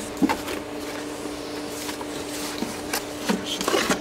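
Handling noise as cables and a switch set are laid into a foam-lined cardboard box: a sharp knock about a quarter second in, then scattered taps and rubbing, busiest near the end, over a steady low hum.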